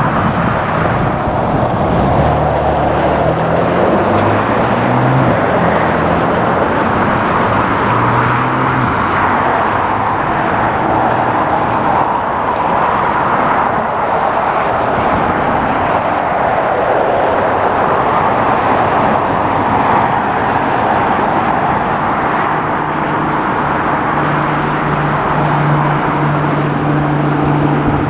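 Jet airliner engines running loud and steady, a dense roar throughout, with a low hum underneath that shifts pitch in steps.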